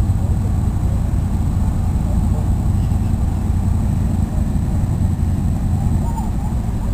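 Landing craft's engine running across the water, a steady low rumble.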